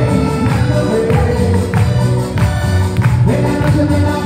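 Loud dance music with a steady beat, played over a sonido sound system.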